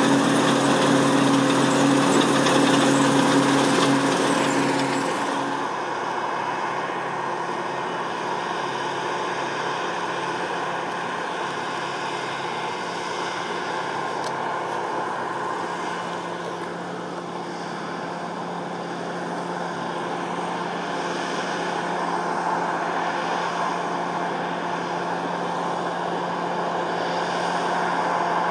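Massey Ferguson 7360 PL Beta Paralevel combine harvester running steadily under harvesting load, a continuous engine and machinery drone. About five seconds in it becomes quieter and duller, then carries on steadily.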